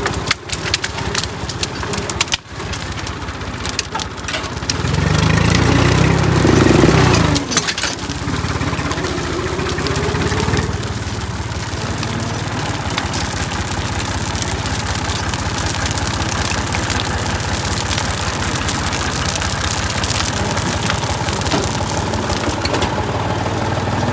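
Massey Ferguson 148 tractor's three-cylinder diesel engine running steadily, growing louder for a couple of seconds about five seconds in before settling back. A few sharp knocks sound in the first few seconds.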